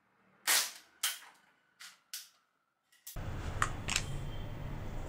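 Two sharp shots from the Blanca air pistol about half a second apart, the first the louder, followed by two faint ticks. Near the end a steady room hum comes in, with two light mechanical clicks.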